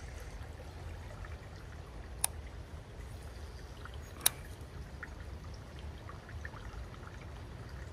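Water of a shallow, rocky creek trickling and flowing steadily, with two sharp clicks about two and four seconds in.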